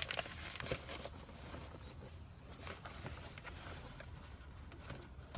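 Faint, scattered light clicks and rustles of fishing tackle being handled, over a low steady hum.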